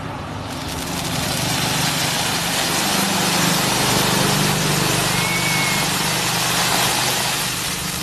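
Ground fountain firework spraying sparks with a steady rushing hiss that builds over the first second, holds strong through the middle, and tails off near the end.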